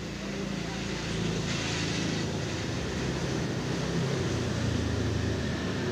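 A motor vehicle's engine running with a steady low hum, growing gradually louder.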